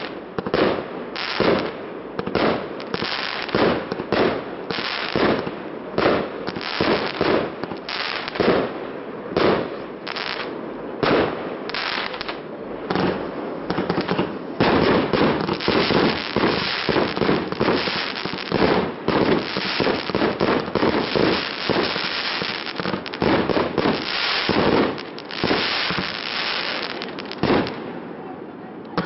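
Fireworks display: aerial shells bursting in quick succession, a continuous barrage of sharp bangs and crackle, about two a second and closer together through the middle.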